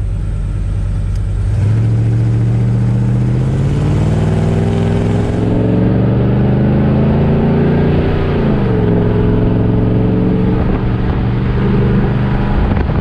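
Motorhome engine through its new free-flowing muffler, heard from the driver's cab while accelerating. The engine note climbs steadily, drops sharply about eight seconds in as the transmission shifts up, then holds steady.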